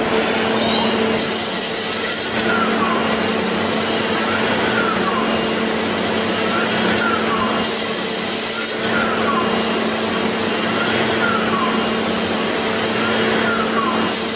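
CNC machine tool running a repeating cycle about every two seconds: a motor whine that rises and falls with each move, and a high hiss that switches on and off, over a steady hum.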